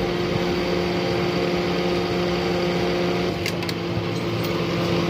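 A motor running steadily under an even hiss, with two faint clicks about three and a half seconds in.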